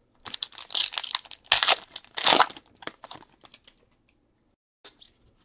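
Foil wrapper of a trading-card pack crinkling and tearing as it is ripped open by hand, a dense crackle for about three seconds, then a few light ticks and a short crinkle near the end.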